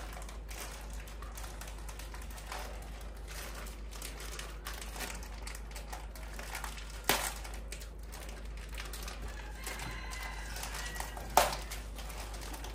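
Plastic instant-noodle packet crinkling and rustling as it is bitten and torn open, with light ticks throughout and two sharp knocks, about seven seconds in and a little before the end.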